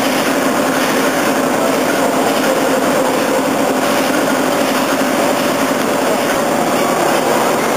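Woolf compound beam pumping engine running on compressed air, a steady mechanical running noise.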